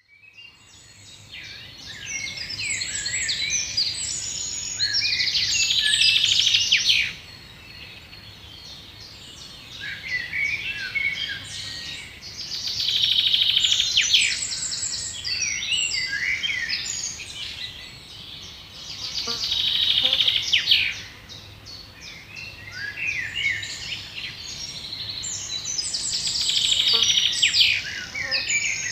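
A songbird singing a long, varied song of chirps and whistles, repeated about four times roughly every seven seconds, each phrase building to a fast, dense trill.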